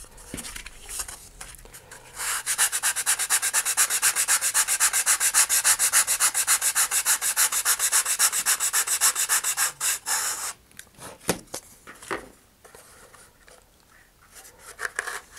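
A wooden model-rocket fin rubbed back and forth on a sandpaper sanding bar in quick, even strokes, about six a second, for roughly eight seconds before stopping. The fin's root tab is being sanded at an angle to fit the slot. A few light knocks and handling sounds follow as the fin is test-fitted.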